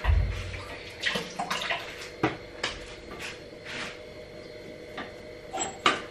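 Kitchen handling sounds at a sink: a dull low bump at the start, then scattered knocks, clinks and short splashy noises from pots, dishes and utensils being moved.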